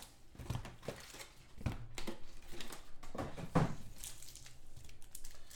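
Foil trading-card packs being handled and sorted on a table: light crinkling of the wrappers, with a few short taps and rustles as packs are picked up and set down.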